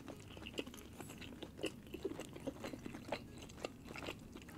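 A person chewing a mouthful of food close to the microphone: soft, irregular clicks and small crunches, a few each second.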